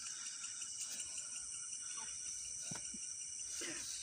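Steady high-pitched trilling chorus of night insects. A few faint knocks and rustles of handling come through about halfway and near the end.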